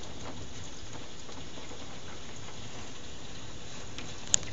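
Heavy thunderstorm rain falling steadily, a dense even hiss with scattered drop ticks. A single sharp click near the end.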